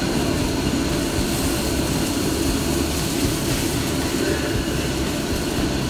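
Commercial gas wok burner running at high flame, a steady loud rushing noise, under a wok of stock at a rolling boil.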